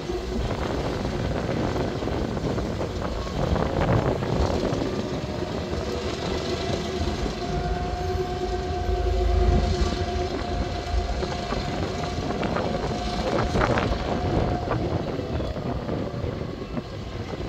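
EMD GR12W diesel-electric locomotive hauling a grain train at walking pace over rusty, little-used track: steady engine rumble with the wheels clicking over the rail joints. A steady tone holds for about eight seconds from around six seconds in.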